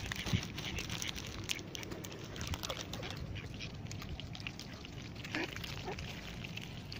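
Mallards and other waterfowl feeding on scattered corn at close range: many short sharp clicks of bills pecking at the ground, with a few brief quacks.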